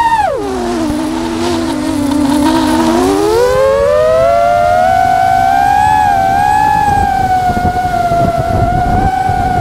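FPV drone's motors and propellers whining. The pitch drops sharply about half a second in, stays low for about two and a half seconds, then climbs back and holds steady, following the throttle. A low rumbling noise runs underneath.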